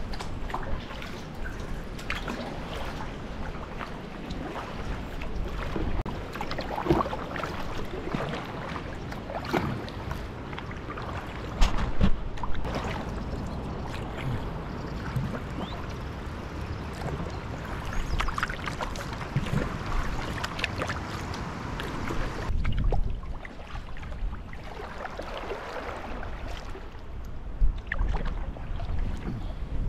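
Kayak paddle strokes with water splashing and lapping against the hull, in an irregular run of splashes, the biggest about twelve seconds in. A low rumble of wind on the microphone runs underneath.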